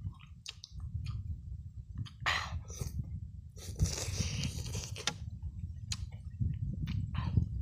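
Close-miked eating: a man biting and chewing boiled chicken, with short wet mouth clicks and smacks and several brief noisy bursts. A steady low rumble runs underneath.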